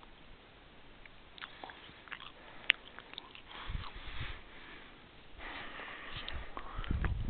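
Handling noise from a handheld camera: scattered small clicks and one sharp click, with two gusts of wind rumbling and hissing on the microphone, the second louder near the end.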